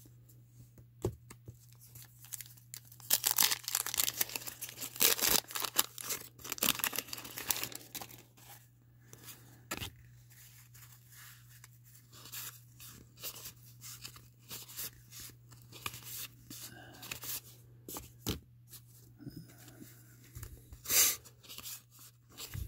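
Wax-paper wrapper of a 1987 Fleer baseball card pack being torn open and crinkled, loudest a few seconds in. Then the soft rustle and flick of cards being thumbed through one at a time, with a sharper crackle near the end.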